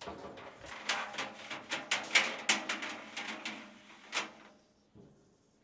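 Hands working a new drive belt around a dryer drum: a dense run of knocks, clicks and scrapes against the drum and cabinet for about four seconds, ending with one sharp knock.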